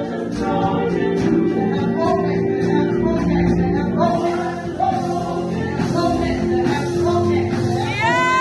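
Live gospel worship music: singing over sustained keyboard and bass notes. Near the end a high note slides up and is held.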